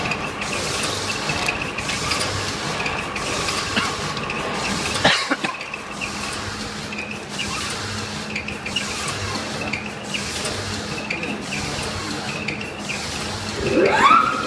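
Horizontal liquid filling and packing machine running, its cycle repeating about every 1.3 seconds with rubbing and ratcheting mechanism noise. There is a sharp clack about five seconds in. Near the end a tone rises and then holds steady.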